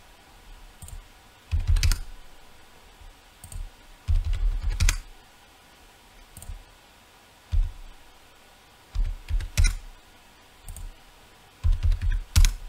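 Computer keyboard keys and clicks in short clusters, about five of them a couple of seconds apart, each with a low thump.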